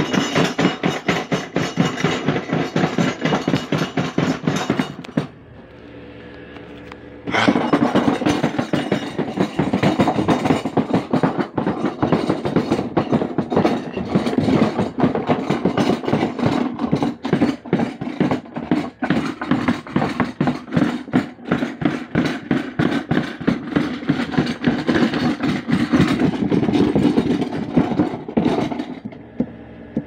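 Small top-load washing machine running with bricks loaded in its drum, the load knocking and rattling rapidly against the tub. It drops out for about two seconds around five seconds in, leaving a faint hum, then starts again abruptly and goes on until near the end.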